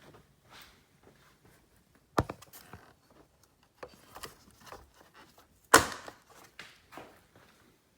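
Two sharp knocks, about two seconds in and just before six seconds, the second the louder, with light clicks and rattles of parts being handled in between.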